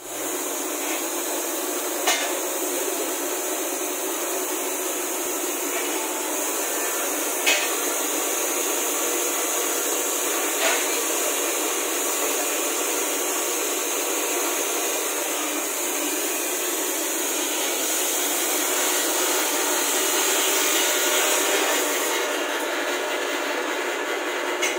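One-bagger mortar mixer driven by a 7.5 hp single-phase electric motor, running with a steady mechanical whir of its motor, belt drive and turning paddles. A few short sharp knocks come through, about 2, 7 and 10 seconds in.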